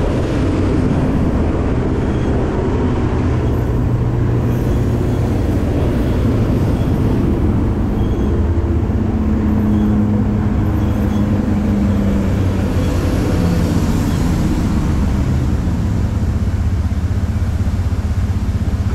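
Hrubetz Hurricane spinning ride running at speed, heard from a seat in one of its cars: a loud, steady rumble, with a low hum that comes in briefly about halfway through.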